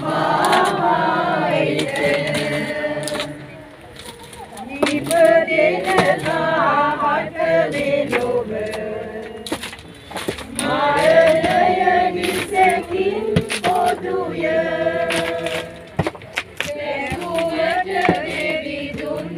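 A choir of men's and women's voices singing together in long held phrases of a few seconds each, with short pauses between the phrases.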